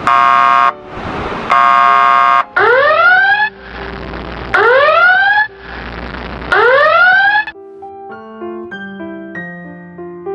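Emergency siren sound effects from a phone app: two steady horn blasts, then three rising whoops about two seconds apart with bursts of noise between them. Soft piano music takes over about three-quarters of the way through.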